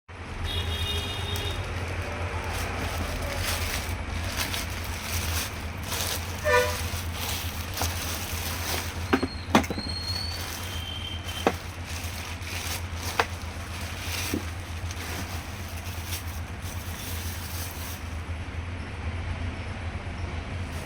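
Street and traffic noise with a steady low hum, a short horn toot about half a second in and a few sharp clicks midway.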